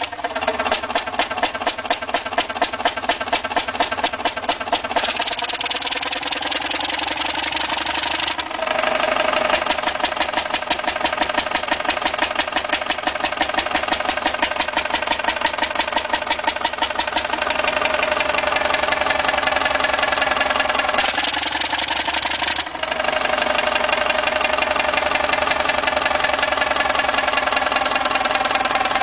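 Fairbanks-Morse Model 32D two-stroke stationary diesel engine running steadily with a fast, even exhaust beat.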